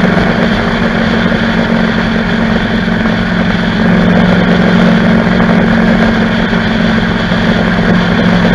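Motorcycle engine running steadily at cruising speed, a constant hum under heavy wind and road noise on the microphone.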